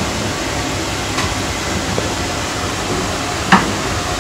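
Wire shelf rack being handled, with light clicks and one sharp metal clank about three and a half seconds in, over a steady rushing background noise.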